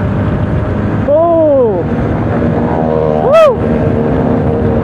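Motorcycle engine running steadily at road speed, heard from the rider's seat, with wind on the microphone. Two short sounds rise and fall in pitch, about a second in and about three and a half seconds in; the second is the loudest.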